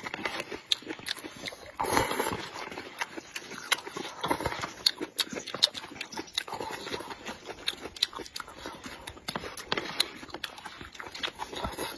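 Noodles in spicy broth being slurped and chewed: several loud slurps among a steady run of wet chewing clicks and lip smacks.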